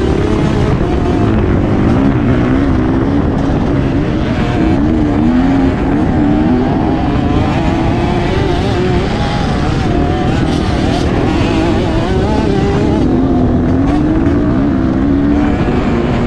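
Motocross bike engine running hard on a dirt track, its revs rising and falling again and again as the rider accelerates, shifts and backs off for turns.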